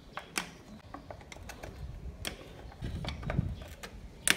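Screwdriver undoing the screws of a motorcycle's air-box cover: irregular light clicks and scrapes of the tool working the screws, with one sharper click near the end.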